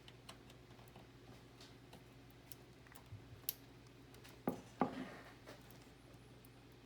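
Faint small clicks and plastic taps from a USB 3.0 front-panel header connector being handled and pushed against the motherboard header, with a couple of louder knocks about four and a half seconds in. The plug is not seating.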